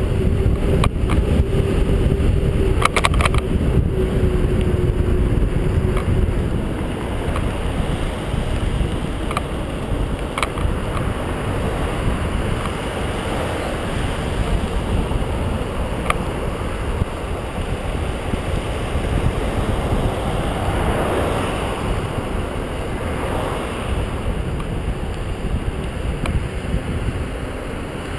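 Wind rushing over a bike-mounted camera's microphone while cycling, with the low rumble of riding over pavement and a few sharp clicks and rattles over bumps. A faint steady hum fades out about six seconds in.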